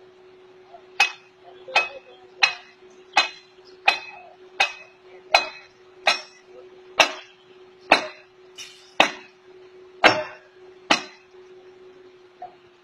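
Hammer blows on metal, about fourteen sharp ringing strikes a little under a second apart, over a steady low hum.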